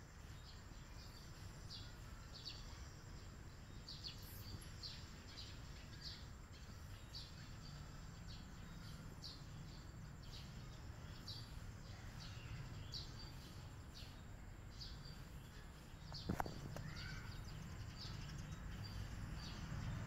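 A small bird chirping over and over in short, high notes, roughly two a second, over a low steady background rumble. A single sharp click about sixteen seconds in.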